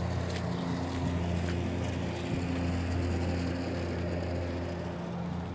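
A steady, low mechanical hum, with a couple of faint clicks.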